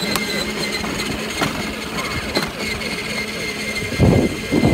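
Electric motor of a children's ride-on toy motorcycle running as it drives, a steady high whine. Near the end a louder low rumbling noise comes in over it.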